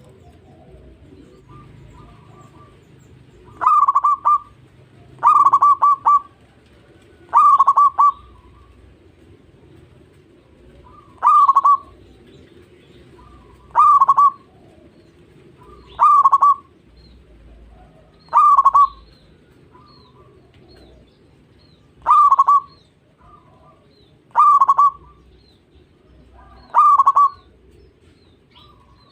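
Zebra dove (perkutut) singing: about ten loud cooing phrases, each a quick run of notes, repeated every two to four seconds with softer notes in between.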